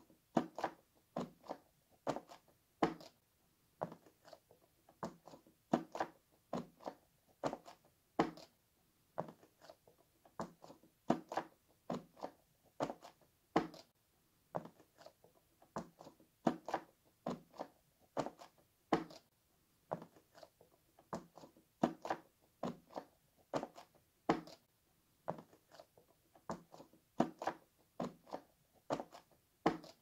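Fingertips pushing in the bubbles of a square silicone pop-it fidget toy, one after another: a continuous string of short popping clicks, a few a second, often two or three in quick succession.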